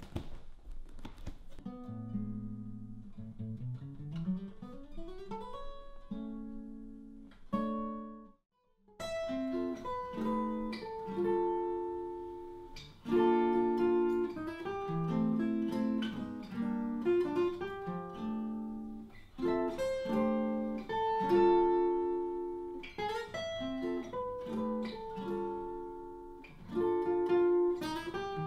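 Acoustic guitar playing: single plucked notes climbing in a rising run, a sudden break about eight seconds in, then fuller chords and melody.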